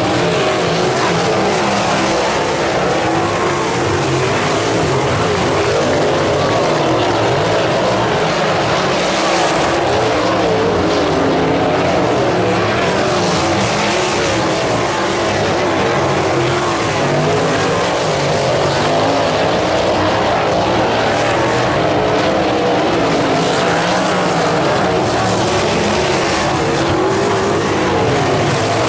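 Several winged dirt-track sprint cars racing, their V8 engines running at high revs, with the engine note rising and falling as the cars go through the turns and down the straights.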